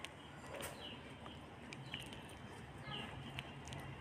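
Metal spoon whisking thick yogurt in a glass bowl, with light clinks against the glass. Faint short bird chirps sound about once a second in the background.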